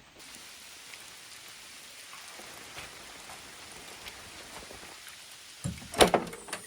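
Steady rain falling, an even hiss. Near the end come a few loud knocks or thumps.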